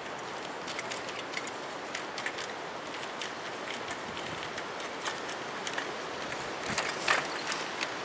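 Strong windstorm wind rushing steadily, with many scattered sharp clicks and rattles, thickest about five seconds in and again around seven seconds.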